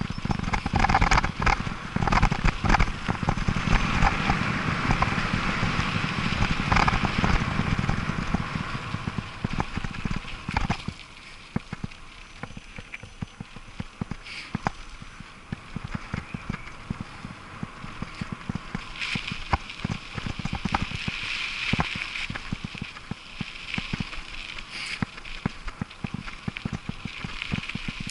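Mountain bike riding over a rough gravel and dirt road: tyre rolling noise with the rattle and clatter of the bike over the stones. It is loud and dense for about the first ten seconds, then quieter with scattered clicks.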